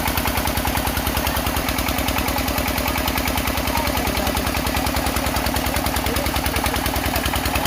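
Engine of a soil-test drilling rig running steadily, with a rapid, even beat.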